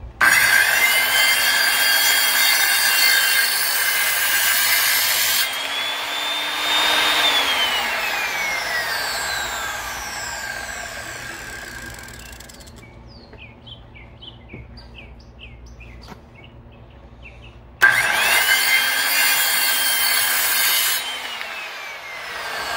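Vintage Skilsaw Model 77 worm-drive circular saw, freshly repaired, starting up and cutting through a clamped wooden board, with no clicking from the motor. Its pitch rises as the blade clears the wood and then winds down after the trigger is released. A second cut starts near the end.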